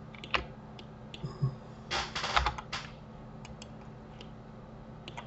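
Computer keyboard and mouse clicking: scattered single clicks, a quick flurry of keystrokes about two seconds in, then a few light ticks.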